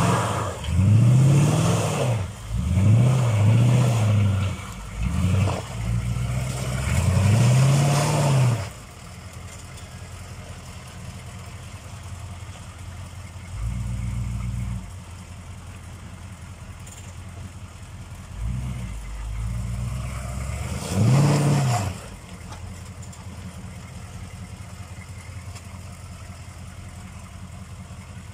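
GM 6.2-litre V8 diesel of a K5 Blazer revving hard in about six quick bursts under load in deep mud, then dropping back to a quieter idle. It revs up again briefly about halfway through and once more a little later, with one short sharp rev before settling back to idle.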